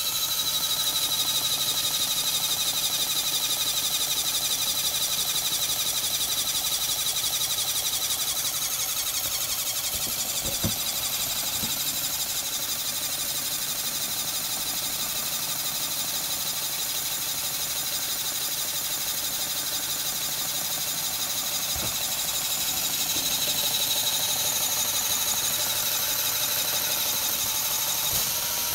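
LEGO Power Functions electric motor driving small pneumatic pumps, a steady high whir with mechanical chatter as it pumps air into the pneumatic tank. The pitch shifts a little about a third of the way in and again near the end, and a few short knocks come through.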